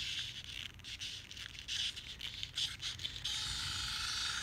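Wind-up toy helicopter: irregular clicking and scraping from the plastic toy and its clockwork as it is wound by hand. About three seconds in, the wound mechanism takes over with a steady whirr as the rotor spins.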